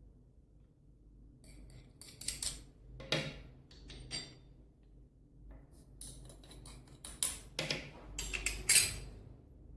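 Kitchen utensils and dishes clinking and scraping in scattered bursts, a spoon knocking against a bowl and containers as ingredients go into the mix.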